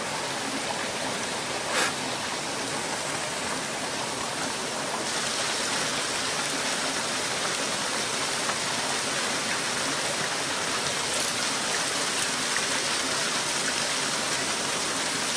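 Small mountain stream running steadily over rocks and a little cascade, a constant rush of water.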